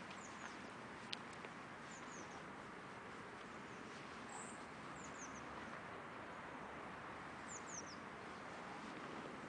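Small birds giving high, thin, downward-sweeping chirps in short runs of two or three, four times over, against faint steady background noise.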